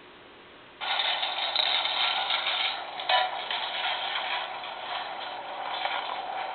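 Sound of a recorded test video playing back through a Sony CCD-TRV58 Hi8 Handycam's small built-in speaker. It starts suddenly about a second in and sounds thin, with no bass.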